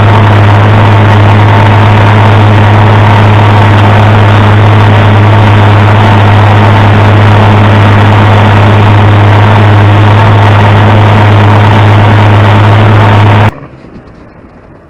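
Engine running very loud at one steady speed, with a constant low drone and no change in pitch. It cuts off abruptly near the end.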